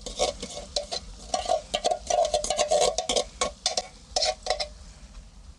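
A metal spoon scraping and clicking inside a tin can, scooping out blended canned tomatoes, in quick repeated strokes that die away about four and a half seconds in.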